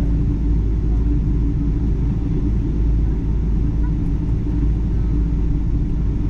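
Steady low rumble of a Boeing 777-300 airliner heard from inside the passenger cabin, with a constant hum running through it.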